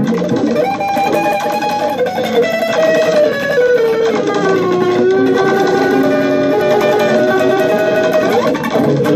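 Amplified guitar played with a glass whiskey bottle as a slide, layered with guitar loops: several sustained notes sound at once, and the upper ones glide smoothly down in pitch around the middle and then hold.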